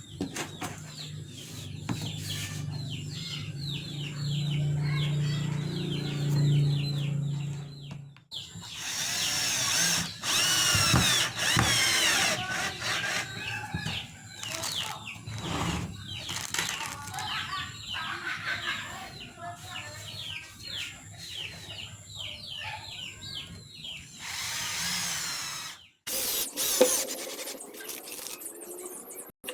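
Power drill running in several short stretches broken by abrupt cuts, with small birds chirping throughout.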